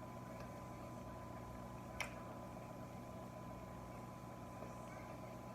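Quiet room tone with a steady low hum and a faint constant tone, broken by a single sharp click about two seconds in.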